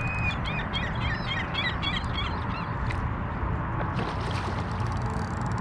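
A flurry of short chirping bird calls over the first two to three seconds, above a steady low rumble; about four seconds in, a fish splashes at the water's surface.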